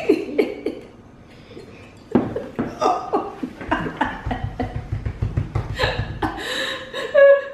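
Two women laughing hard in short, breathy bursts, breaking out about two seconds in after a brief quieter moment, with a low rumble under the laughter in the middle.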